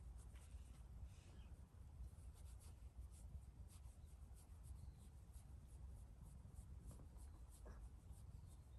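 Faint, quick rubbing strokes of a hand massaging a cat's fur, several a second, over a low steady rumble.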